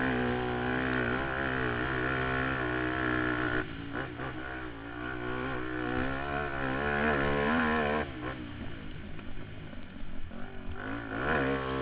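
Suzuki QuadSport Z400 ATV's single-cylinder four-stroke engine running hard on a motocross track, rising and falling in pitch with the throttle. The throttle is chopped about three and a half seconds in and again about eight seconds in, each time picking back up, with a rising rev near the end.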